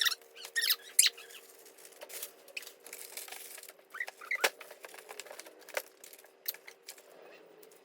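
Food packages and plastic containers being handled and set on refrigerator shelves: a string of short clicks and knocks with crinkling rustles and a few squeaks, loudest in the first second. A faint steady hum runs underneath.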